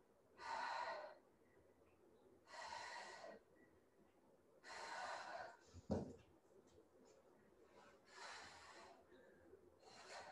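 A woman's heavy breathing while exercising: four long, breathy breaths about two seconds apart, with a short knock about six seconds in.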